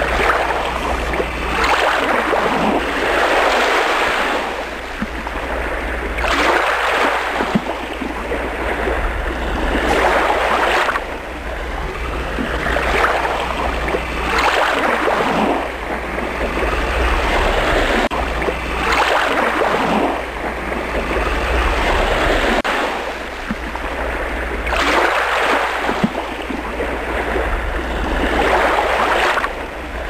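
Ocean surf: waves breaking and washing in one after another, a rushing swell every two to three seconds over a steady low rumble.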